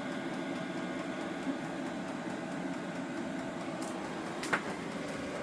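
VEVOR diesel heater running, its blower giving a steady hum with a few constant tones, and one sharp click about four and a half seconds in.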